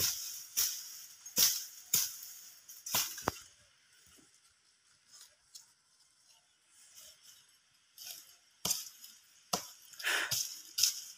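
Black sugar palm fibre being torn off the trunk by hand: a series of sharp, crisp ripping snaps, about two a second at first, then a pause of several seconds before more tearing near the end.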